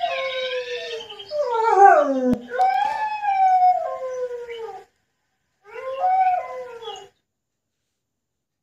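Dog howling: long, drawn-out howls that each slide down in pitch, including a steeper falling one about two seconds in and a shorter last howl about six seconds in.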